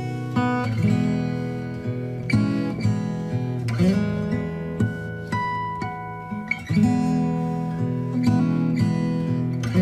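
Background music on acoustic guitar: plucked notes and chords that ring on, with no voice.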